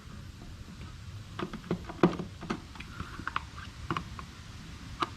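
Irregular light clicks and knocks of hard plastic parts being handled and fitted onto the body of a Sun Joe SPX3000 electric pressure washer during assembly, the sharpest knock about two seconds in.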